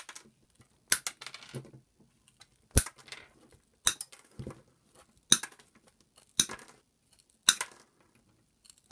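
7-inch combination pliers cutting 10-gauge silver-plated wire with Teflon insulation, a sharp snap at each cut, about six cuts a second or so apart, with faint small clicks of the jaws and wire between.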